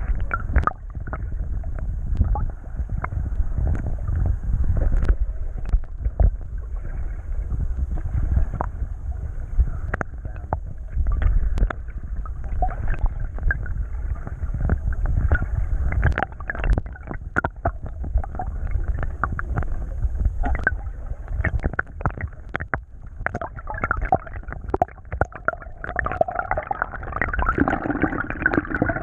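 Muffled water sloshing and gurgling around a camera held under the water from a kayak, with a steady low rumble and many irregular knocks. It grows somewhat brighter near the end.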